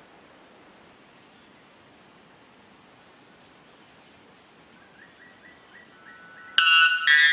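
White bellbird giving its very loud two-part call near the end, a sudden ringing, metallic blast broken by a short gap. It follows a few faint short notes.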